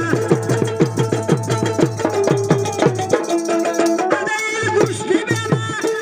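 Instrumental interlude of Bengali folk music: a plucked long-necked lute plays a melody over a hand drum beaten in a quick, even rhythm, each drum stroke sliding down in pitch. The drum strokes drop out for about a second a little past the middle, then resume.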